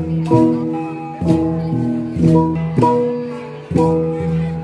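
Central Highlands gong ensemble (cồng chiêng): several hand-held gongs, some with a central boss, struck with mallets in an interlocking repeating pattern. Each stroke rings on with a pitched tone that slowly fades, so the notes of different gongs overlap.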